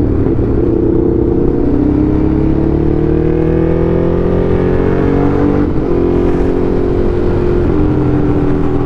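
Motorcycle engine running under way, its pitch climbing steadily as it accelerates, then dropping a step about two-thirds through as it shifts up and holding steady.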